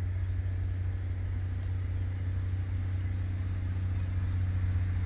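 Steady low rumble of traffic on a busy road, swelling slightly near the end.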